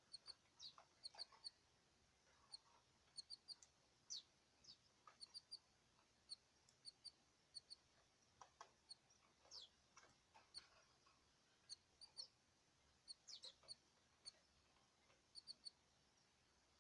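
Faint chirping of small cage birds: short, high chirps that come in quick twos and threes again and again, mixed with a few sharp calls that slide down in pitch.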